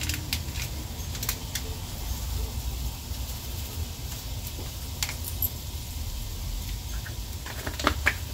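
Scattered light clicks and taps of spice containers and utensils being handled while food is seasoned, over a steady low hum.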